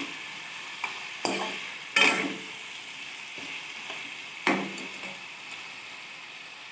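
Chicken pieces and onions sizzling in oil in a wok, stirred with a spatula: a steady frying hiss with three sharper scrapes of the spatula against the pan, the loudest about two seconds and four and a half seconds in.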